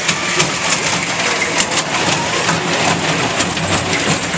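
Kiddie roller coaster cars running along a low steel track, a steady rumble with many sharp clicks and rattles as the train passes close by.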